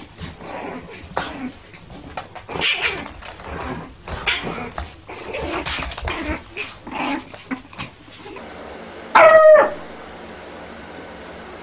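Puppies whimpering and yipping in many short, high cries in quick succession. About nine seconds in comes one louder, drawn-out high cry.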